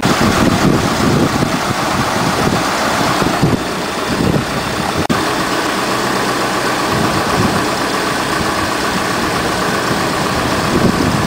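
Old Ford truck's engine idling steadily.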